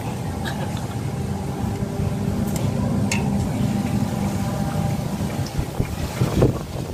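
A motor running with a steady low hum, with a few faint clicks.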